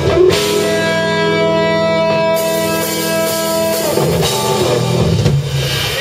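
Live rock trio of electric guitar, bass guitar and drum kit closing a song: a hit, then a chord held ringing for about three and a half seconds, then the drums and guitars come back in briefly near the end.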